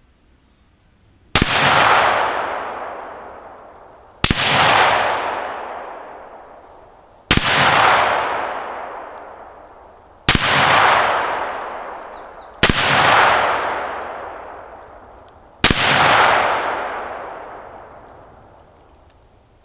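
AR-15 rifle in .223 fired six times at a steel target, with the shots about three seconds apart. Each shot is a sharp crack followed by a long echo dying away.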